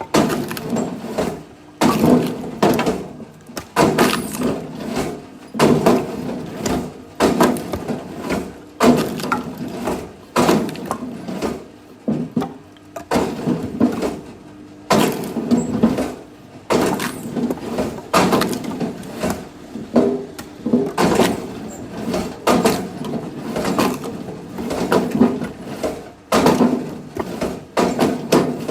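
Axe striking and splitting firewood, a hard knock about every one and a half to two seconds, with lighter knocks of wood pieces between the strikes.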